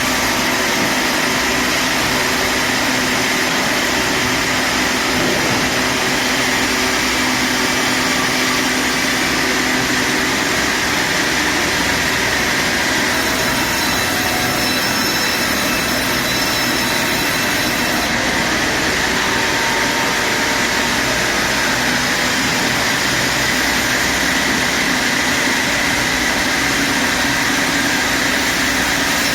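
Sawmill headrig band saw running and sawing a log: a loud, steady machine noise with a hissing whine that holds level throughout.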